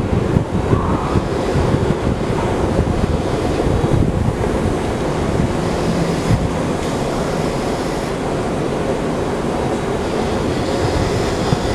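Inclined moving walkway running: a steady mechanical rumble from the moving treads and drive, with no clear breaks or strokes.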